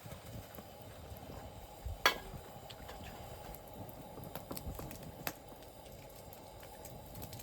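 Food cooking over a wood campfire: a steady low hiss with a few sharp pops or cracks, the loudest about two seconds in and another near five seconds.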